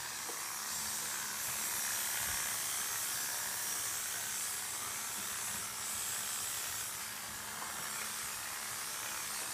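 Corded electric dog clippers running steadily while shearing a dog's thick curly coat: an even hiss with a faint low hum underneath.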